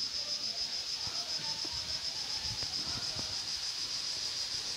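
A steady high-pitched insect chorus: a continuous shrill buzz with a fast, even pulse.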